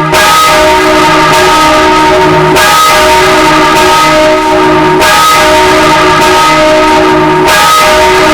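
Full peal of six swinging church bells ringing together, loud, their strokes overlapping so the ringing never breaks.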